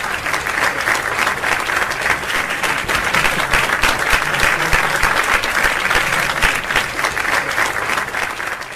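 Audience applauding, a dense, steady patter of clapping.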